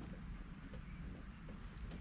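Faint outdoor background: a steady high-pitched insect trill over a low rumble, with a few faint clicks.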